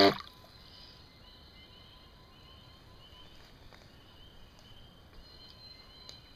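The small electric motor of an RC fishing boat, running with a steady hum, cuts off right at the start. After that a faint high chirp repeats a couple of times a second over quiet outdoor background, like a calling insect or frog.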